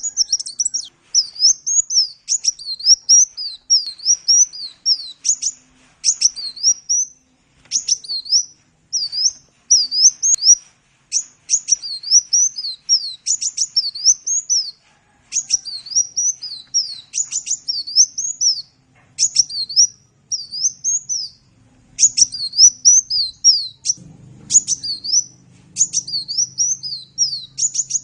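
A sunbird (the 'kolibri' of Indonesian bird keepers) singing: quick, high-pitched chirping notes in short phrases with brief pauses between them, repeated throughout. A faint low hum sits underneath near the end.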